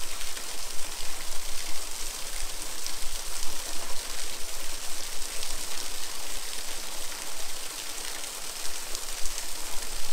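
Waterfall running, a steady rushing hiss of falling water.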